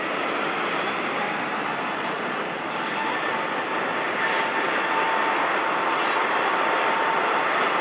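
Airbus A380-800's four turbofan jet engines running at taxi power as the airliner rolls past: a steady rush of jet noise with a faint whine that comes in about two and a half seconds in, growing a little louder from about four seconds in.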